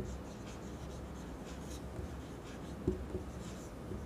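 Marker pen writing on a whiteboard: faint strokes of the tip across the board, with one short tap about three seconds in.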